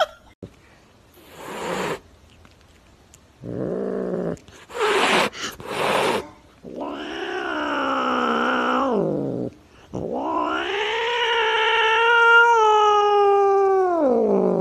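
Domestic cat yowling: a short call, then two long drawn-out yowls, the second longer and sliding down in pitch at its end. Short noisy hiss-like bursts come before the yowls.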